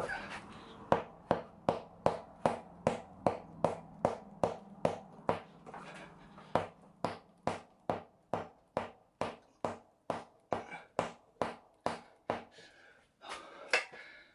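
A steady, even series of sharp knocks or clicks, about three a second, that stops near the end.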